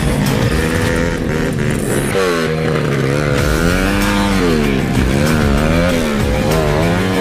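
Dirt bike engine running, fairly steady at first, then revving up and down several times from about two seconds in as it climbs a steep, muddy slope with its rear wheel slipping.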